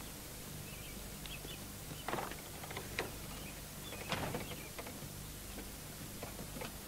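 Quiet outdoor ambience with small birds chirping faintly, a few soft knocks about a second apart, and a low steady hum underneath.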